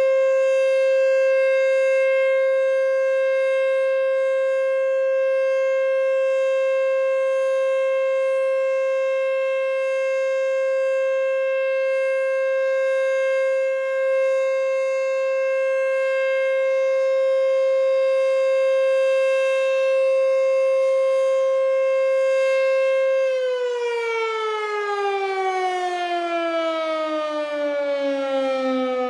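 ACA Screamer S-2 electromechanical tornado siren sounding one steady, high tone during a test. About 23 seconds in it winds down, its pitch falling steadily.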